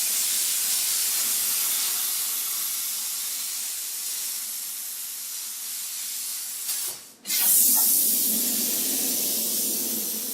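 Plasma cutter cutting a hole in steel, a loud steady hiss of air and arc. It breaks off briefly about seven seconds in, starts again with a low hum under the hiss, and trails off near the end.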